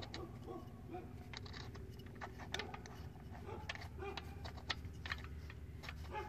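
Faint, scattered light clicks and scrapes of a hand threading a new spark plug into the cylinder head by hand, over a low steady background hum.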